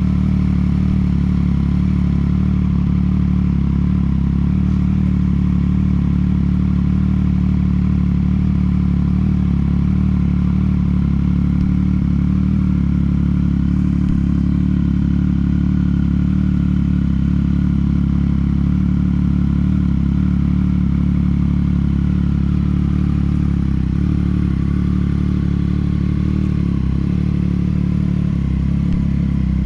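2018 Triumph Street Triple 765's three-cylinder engine idling steadily through a Toce Performance slip-on exhaust after a cold start, a deep even exhaust note with no revving.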